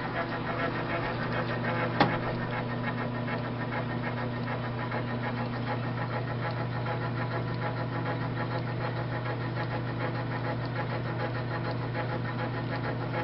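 A South Bend lathe runs steadily with its motor and drive humming while a die cuts a 1/4-20 thread on the spinning work. There is a single sharp click about two seconds in.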